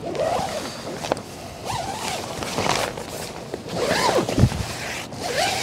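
Zipper on an iKamper Skycamp rooftop tent's fabric cover being pulled open in several strokes, each rasp rising and falling in pitch as the pull speeds up and slows, with a knock about four and a half seconds in.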